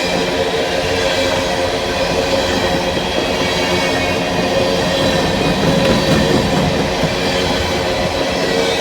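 A long empty coal train of hopper cars rolling past: steel wheels clacking over the rails with a steady, high wheel squeal.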